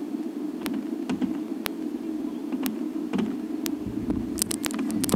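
Distant fireworks display: a steady low rumble with sharp cracks about once a second, and a burst of crackling with low thumps near the end.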